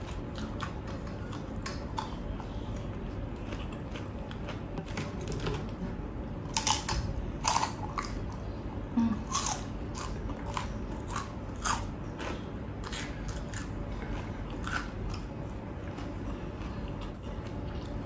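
Close-miked chewing and biting of crisp, crunchy food, a run of sharp crunches that grows louder and denser through the middle stretch.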